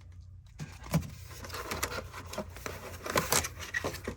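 Plastic packaging rustling and clicking as small 3D-printer filament spools are handled, loudest about three seconds in.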